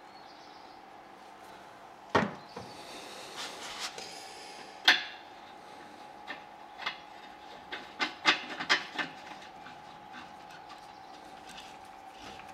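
Metal pipe fittings being handled and screwed together: sharp knocks about two and five seconds in with some scraping between them, then a quick run of clicks around eight to nine seconds, over a faint steady tone.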